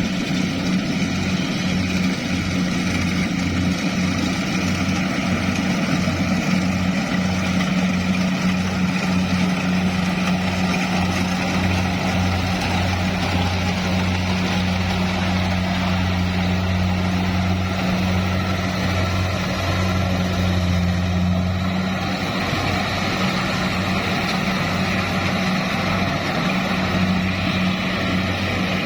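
Farm machine's engine running steadily under load, a pulsing low drone with mechanical clatter above it. The engine note dips briefly about two-thirds of the way through, then settles again.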